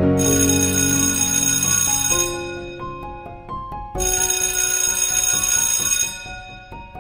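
Instrumental background music with single notes stepping up and down. Twice, at the start and about four seconds in, a bright high shimmering layer comes in for about two seconds and fades.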